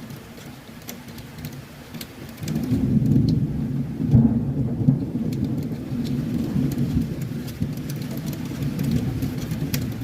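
Heavy rain with scattered drops ticking, and a long low roll of thunder that swells suddenly about two and a half seconds in and rumbles on.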